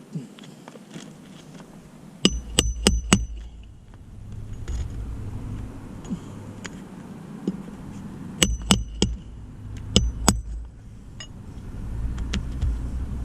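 Sharp ringing clinks, as of hard objects tapping together: four in quick succession about two seconds in, then another cluster of several around eight to ten seconds in, over a low rumble.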